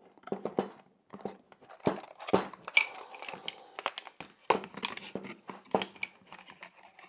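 Steel C-clamp being unscrewed and taken off glued plywood pieces: a run of irregular light metal clinks and wooden knocks from the clamp's screw and handle and the boards being handled on the bench.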